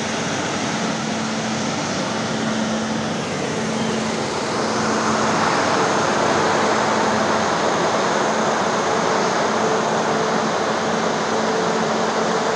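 Corn dryer's large caged axial fans running: a loud, steady rush of air over a faint low hum. It gets louder about four and a half seconds in.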